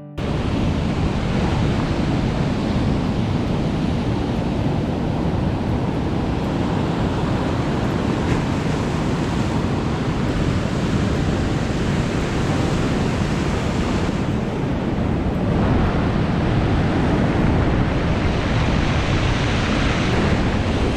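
Sea surf and wind buffeting the microphone: a steady rushing noise that grows a little stronger in the last few seconds.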